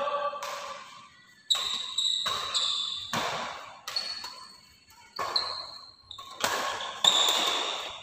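Badminton rally: rackets smacking the shuttlecock about seven times, roughly once a second, each hit echoing in the hall. High squeaks, likely shoes on the wooden court, follow some of the hits.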